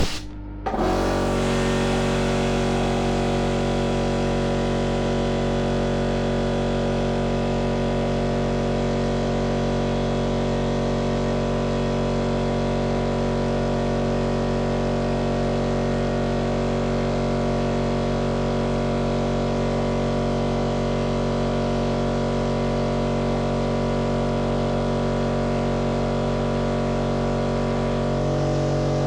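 A milling machine running steadily while working out a seized, broken bolt: a constant hum with several fixed tones. It starts just under a second in, and its pitch shifts slightly near the end.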